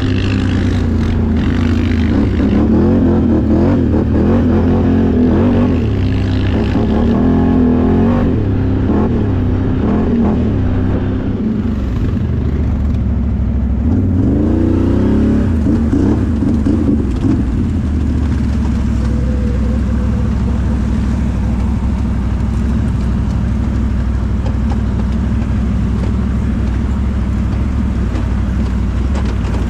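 Can-Am Outlander XMR 1000R ATV's Rotax V-twin engine revving up and down again and again through the first half, then running steadily at an even, lower pitch from a little past halfway.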